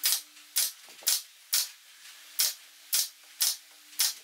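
Pneumatic brad nailer firing eight times, about two shots a second with a short pause in the middle, each shot a sharp crack as a brad is driven into wood.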